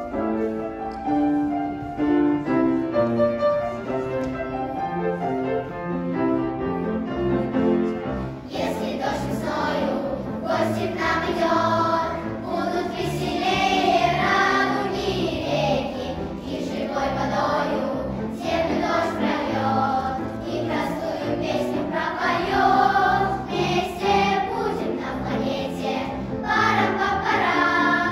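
Children's choir singing with piano accompaniment. The piano plays alone for about the first eight seconds, then the voices come in.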